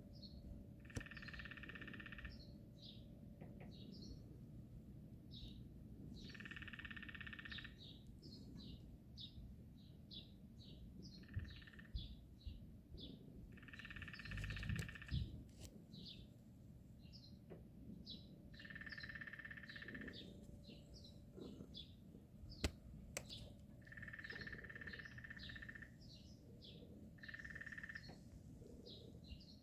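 A repeated burst of about a second or more, coming seven times at uneven gaps of a few seconds, which the uploader takes for a woodpecker, over the steady chirping of many small birds.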